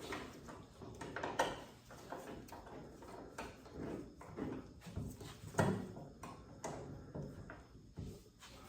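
Scattered light metallic knocks and clicks, with two sharper knocks about a second and a half in and near the middle, from hand work on a car door's hinge bolts.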